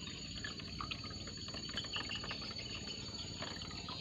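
Water trickling and dripping in many small irregular drops, over a steady high-pitched whine.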